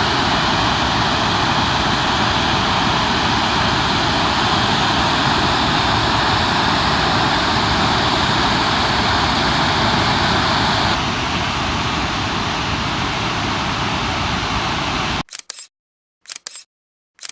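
Waterfall rushing as a loud, steady roar of falling water. The sound turns slightly duller about eleven seconds in, then cuts off near the end, leaving only a few brief fragments.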